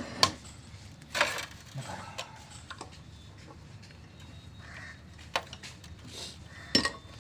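A few sharp clinks and knocks of tools and metal parts being handled, with quieter stretches between; the loudest is a short rattling knock about a second in, and another comes near the end.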